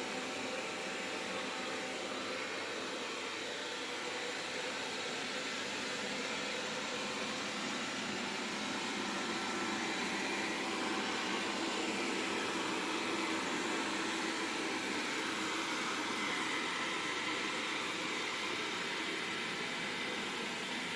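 Vacuum cleaner running steadily, its motor and suction a continuous whooshing hum, a little louder about halfway through.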